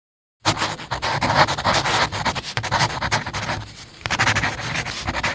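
Marker pen scribbling on a whiteboard: a quick run of scratchy drawing strokes that starts about half a second in, with a brief lull just before the four-second mark.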